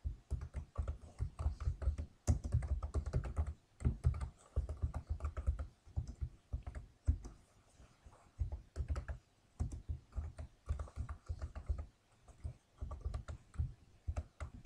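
Typing on a computer keyboard: bursts of rapid keystrokes with short pauses between them.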